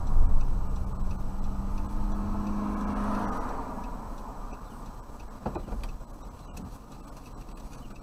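Car engine and road noise heard from inside the cabin as the car moves slowly along a city street, with a steady low hum for the first three seconds; the noise fades as the car slows almost to a stop, with a brief click about five and a half seconds in.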